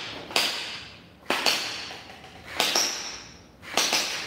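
P90-style gel blaster firing single shots in semi-auto mode: four sharp shots about a second apart, each one trigger pull firing one gel ball. The balls knock down small flip-down plastic targets on the table.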